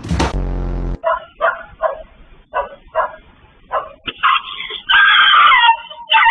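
A dog giving a run of short, sharp barks, then a long, loud, wavering cry, after a brief low hum at the start.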